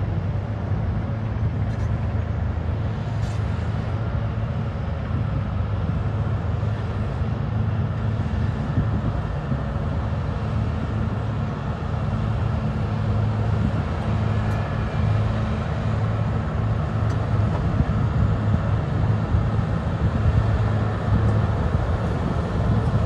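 Caterpillar 140M motor graders' diesel engines running steadily as the machines pass, a low steady drone that grows somewhat louder over the last few seconds.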